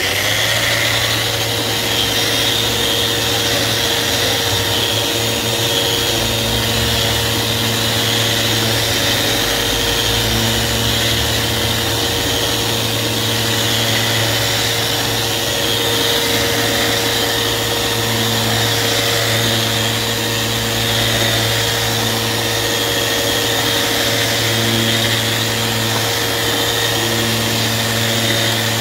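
Festool Rotex RO 150 random-orbit sander running steadily at reduced speed, sanding a clear acrylic block with fine 1200-grit abrasive.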